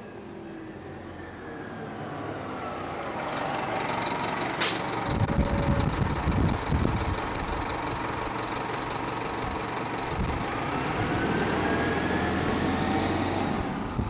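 A bus pulling in to the stop: its engine grows louder as it approaches, the air brakes give one sharp hiss about five seconds in, and the engine rumbles on with rising and falling engine tones.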